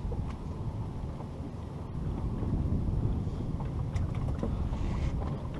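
Steady low rumble aboard a fishing charter boat, swelling a little in the middle, with a few faint ticks.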